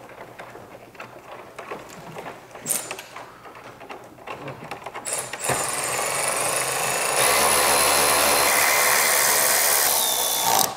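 Hard plastic grille parts handled with light clicks and knocks, then a cordless electric ratchet with a 10 mm socket runs steadily for about five seconds, driving a grille screw. It has a high motor whine, gets louder about halfway through the run, and stops abruptly.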